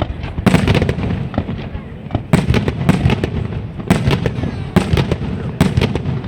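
Fireworks going off: volleys of several quick bangs and cracks every second or two, with a rumbling echo between them.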